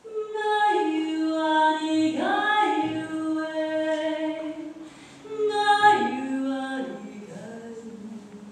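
A group of women singing without accompaniment in long held notes, with swooping slides in pitch about two and six seconds in; a second phrase begins about five and a half seconds in and fades toward the end.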